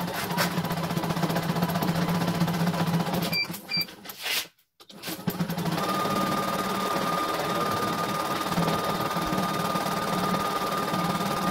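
CNY E900 computerised embroidery machine stitching at a steady, rapid needle rate. About three seconds in the stitching stops, two short beeps sound, and after a brief pause it starts stitching again.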